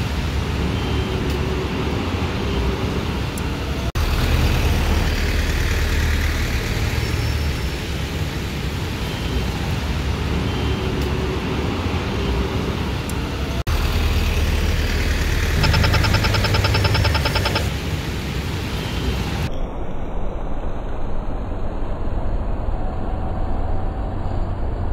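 Busy city-street traffic ambience: a steady rumble of cars, trucks and buses passing. For about two seconds past the middle a rapid ticking sounds over it, and near the end the traffic turns muffled and dull.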